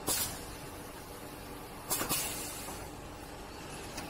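Rotary cup filling and sealing machine running, with a short, sharp hiss of compressed air from its pneumatic cylinders twice, near the start and about two seconds in, as the filling station cycles.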